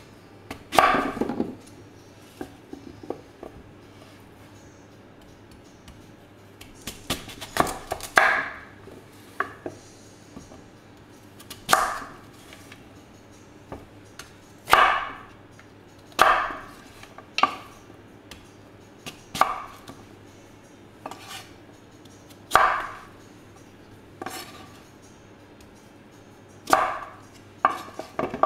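Kitchen knife cutting through peeled raw sweet potatoes on a wooden cutting board: separate cuts every one to two seconds, some in quick pairs, each with a short fading tail.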